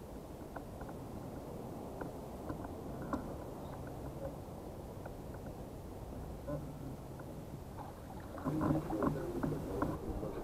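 Sounds aboard a kayak on the water: a steady low wash of water against the hull with scattered small knocks and taps. A louder cluster of clattering knocks comes near the end.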